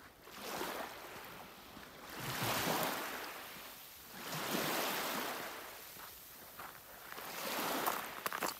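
Small waves lapping on the shore of a partly frozen lake, washing in as four rising-and-falling swells about two seconds apart. A short run of sharp clicks comes near the end.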